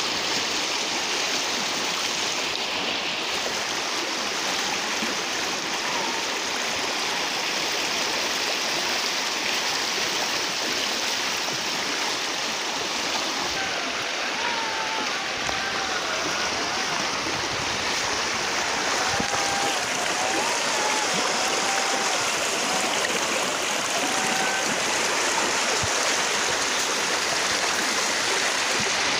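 Muddy stream swollen by heavy overnight rain, rushing and churning along its banks in a steady, continuous wash of water noise.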